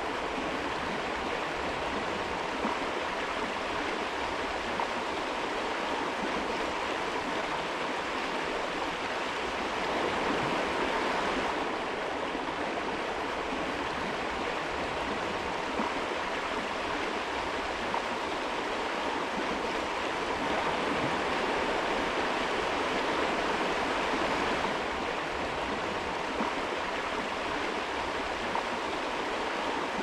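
Shallow creek running over a stony riffle: a steady rushing and babbling of water that swells slightly twice.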